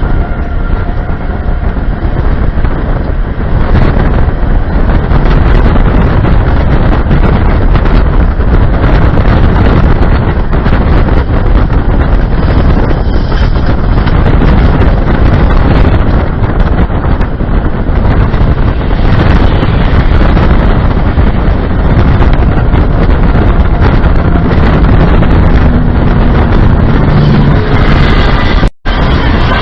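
Strong wind blasting the microphone during a tornado: a loud, steady rushing roar. It cuts out for an instant near the end.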